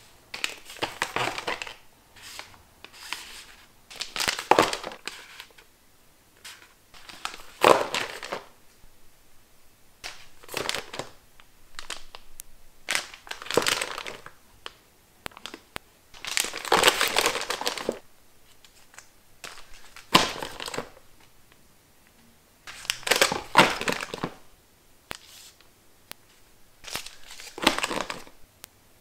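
Face sheet mask sachets crinkling as a hand shuffles them and packs them upright into a plastic storage box. The crinkling comes in about a dozen separate handfuls with short pauses between.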